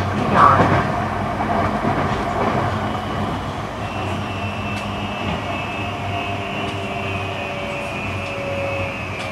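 JR East E235 series electric train running, heard from inside a motor car: rumble of the wheels on the rails, with the thin whine of the SiC-VVVF inverter and traction motors coming through from about four seconds in.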